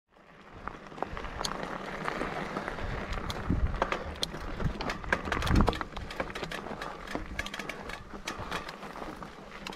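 Mountain bike riding over loose rocky singletrack: tyres crunching on gravel and stones, with constant clicks and rattles from the bike. Two heavy thumps, about three and a half and five and a half seconds in, as the bike drops over bumps.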